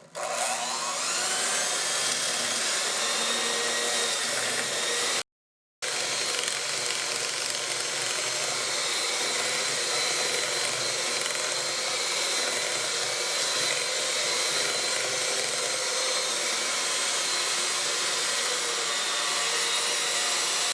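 Electric mixer running steadily, beating whoopie pie filling of butter, sugar and cooked flour-and-milk paste until fluffy. Its whine rises as it comes up to speed at the start, and the sound breaks off for about half a second some five seconds in.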